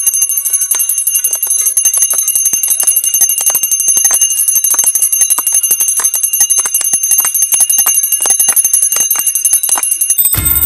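Puja hand bell rung rapidly and continuously for an aarti: a steady high ringing with fast, closely spaced strikes. The sound changes abruptly just before the end.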